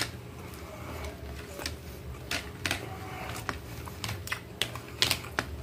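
Close-miked eating: chewing, with a string of sharp, irregular clicks as a metal spoon and knife tap and scrape against a plastic plate.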